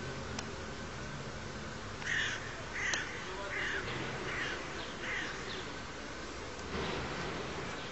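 A bird cawing repeatedly, about seven short harsh calls in quick succession from about two seconds in, over a low steady hum that is strongest at the start.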